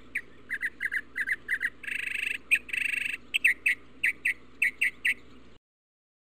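Birds chirping: a quick run of short, high chirps with two longer trills in the middle, over a faint steady background. It cuts off abruptly near the end.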